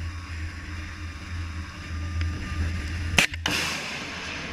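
A single sharp bang a little over three seconds in, followed by a rushing hiss: a missile launching and its rocket motor flying off. Steady wind rumbles on the microphone throughout.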